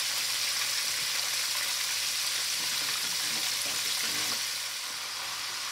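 Chicken wings deep-frying in hot grease in a cast iron pot, a steady hissing sizzle that eases slightly about four and a half seconds in.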